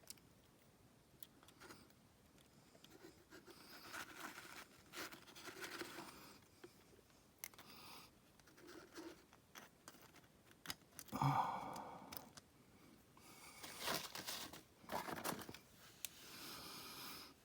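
Small metal hand tools clicking and scraping against engine parts while a tiny circlip is worked onto a gear shaft, with intermittent rustling. The loudest moment is a short scrape with a brief ringing note a little past the middle.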